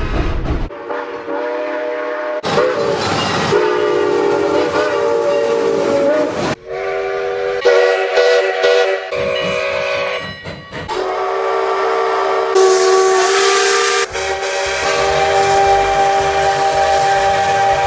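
Steam locomotive chime whistle, Sierra Railway No. 3's, blowing a string of long, loud blasts. Each blast is a chord of several steady tones, with short breaks between them. In the last few seconds the locomotive's exhaust chuffs under the whistle as it works hard.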